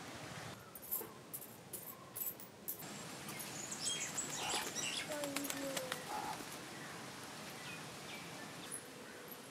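Birds chirping and calling over a quiet outdoor background. There are a few sharp clicks in the first few seconds and a short falling whistle about halfway through.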